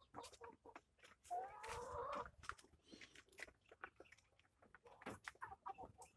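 FFG chickens pecking at feed in a pan feeder: faint, irregular ticks, with one chicken giving a call of about a second about a second and a half in.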